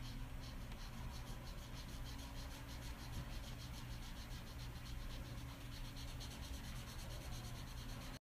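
Pencil scratching on sketchbook paper in quick, even back-and-forth strokes as grey shading is built up, over a faint steady low hum.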